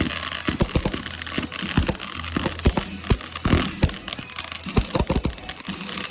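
Fireworks going off in quick succession: a string of sharp bangs, about two or three a second, over continuous crackling, with a steady low hum underneath.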